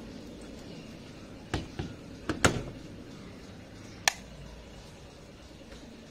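Door of a Beko front-loading washing machine being swung shut: a few knocks, then a loud clunk as it latches about two and a half seconds in, followed by one sharp click about four seconds in.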